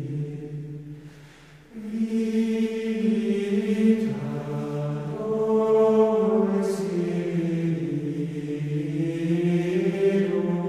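Background music of slow sung chant by a group of voices, with long held notes. One phrase fades out and the next begins about two seconds in.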